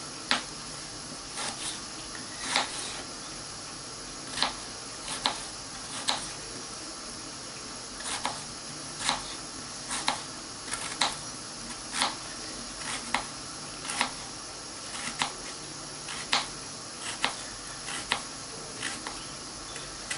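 Kitchen knife slicing raw Charlotte potatoes thinly on a plastic chopping board: a sharp tap as the blade meets the board, irregularly about once every half-second to second, over a steady faint hiss.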